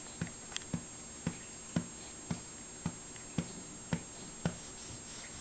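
Hand patting a back in a steady rhythm, about two soft pats a second, to bring up a burp.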